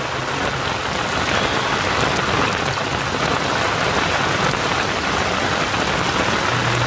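Heavy rain falling steadily on the boat and the river, a dense even hiss with scattered drop taps.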